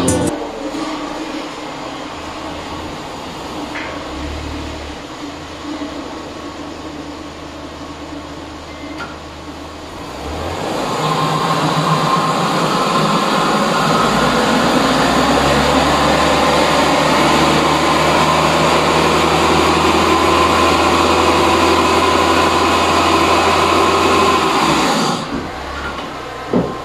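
A car's front wheels spin on the rollers of a speedometer tester during a speed test, with the engine running. About ten seconds in the tyres and rollers speed up into a louder, steady whine, which cuts off sharply near the end as the wheels are brought to a stop.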